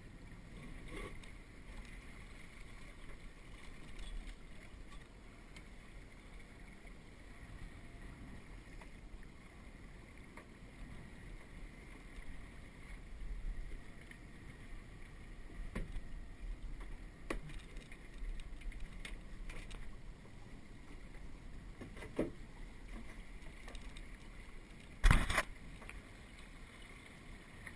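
Small sailing trimaran moving through the water in light air: a quiet, low wash of water along the hulls with some wind on the microphone. Scattered clicks and knocks come from the boat, and one sharp knock about 25 seconds in is the loudest.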